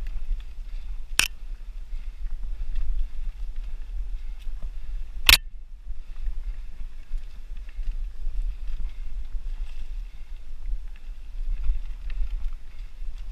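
Mountain bike ridden over a dirt singletrack, heard through a helmet-mounted camera: a steady, uneven low rumble of wind and trail noise on the microphone. Two sharp knocks come through it, one about a second in and a louder one about five seconds in.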